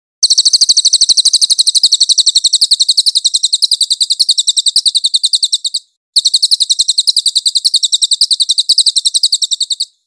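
Cililin songbird singing a rapid, even trill of very high, sharp notes, roughly ten a second. The trill runs for over five seconds, breaks off briefly, then resumes for about four more seconds.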